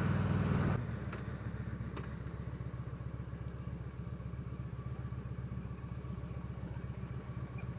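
Victory Vegas V-twin motorcycle engine; its louder running sound drops off sharply under a second in, then it settles into a steady, evenly pulsing idle.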